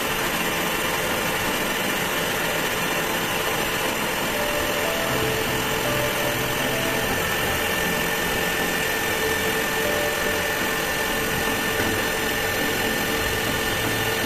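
Metal lathe running steadily, a constant machining noise with a faint steady whine.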